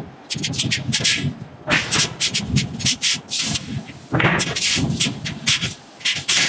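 Irregular scraping and hissing as a red-hot forging block is shifted and turned on the press anvil by a manipulator's tongs, in a quick run of short, noisy bursts.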